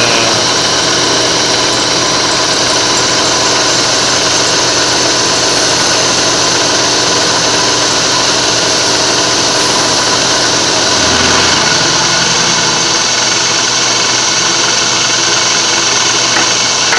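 Bed mill end mill face-cutting steel, 1/8 inch deep at about 10 inches a minute under power feed: a loud, steady cutting noise from the spindle and cutter working through the metal.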